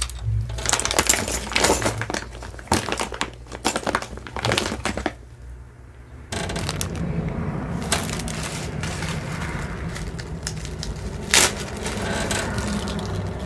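Crinkling and rustling of plastic packaging as small jewelry items are handled, in a quick run of crackles for about five seconds. After a short lull a steady low hum starts, with one sharp click a few seconds later.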